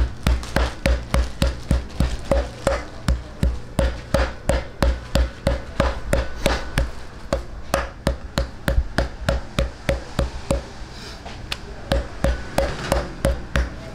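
Kitchen knife chopping rapidly against a thick round cutting board, about three to four sharp knocks a second, as a slice of pork is scored.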